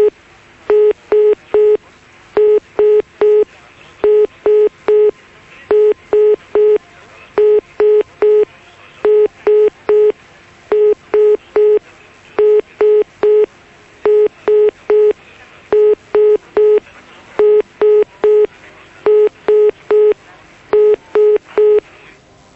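Telephone line tone: short, single-pitched beeps in groups of three, a group about every second and a half, repeating steadily.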